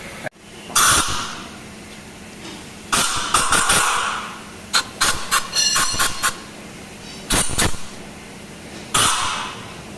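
Short blasts of compressed air, each cutting in sharply and trailing off in a hiss. A quick cluster of blasts comes midway, with single ones before and after.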